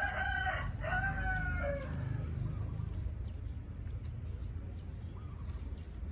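A rooster crowing once, a call of about two seconds in two parts right at the start. After it, only a steady low rumble with faint short ticks.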